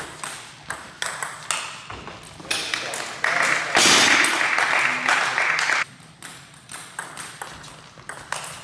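Table tennis ball being struck back and forth, a string of sharp, irregular ticks as it hits the bats and the table. A louder rushing noise covers the middle few seconds.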